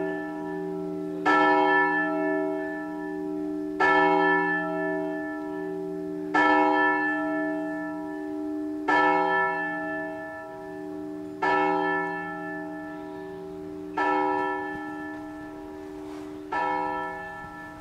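A single church bell tolling slowly, struck seven times about every two and a half seconds, each stroke ringing on with a low hum that fades before the next.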